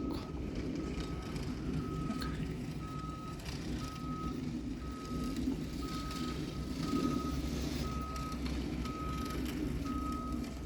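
Salt truck's backup alarm beeping steadily about once a second as it reverses, over the steady rumble of its engine.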